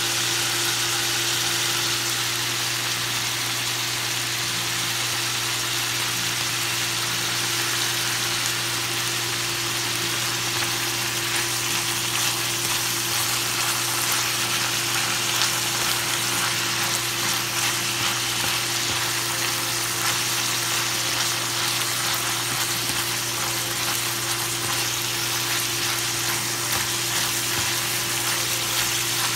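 Shirataki noodles (ito konnyaku) and chopped hen chicken sizzling steadily in an oiled pan as they are stir-fried and tossed.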